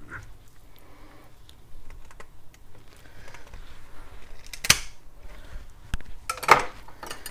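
Hands handling a plucked chicken carcass in a ceramic sink while gutting it: quiet rubbing and rustling, with two sharp knocks a little under two seconds apart in the second half, the second slightly longer.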